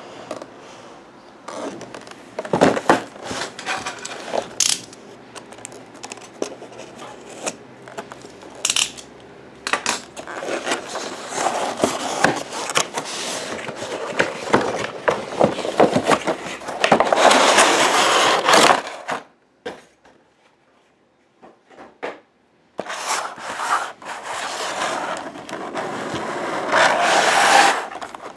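Toy airplanes and airport play-set pieces being handled, with repeated scraping, rubbing and clicking knocks. There is a pause of about three seconds about two-thirds of the way through.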